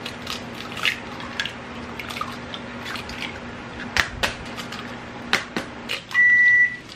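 Eggs being cracked one after another against the rim of a mixing bowl: a series of sharp taps and cracks over a faint steady hum. Near the end a kitchen appliance gives one loud, high beep lasting about half a second.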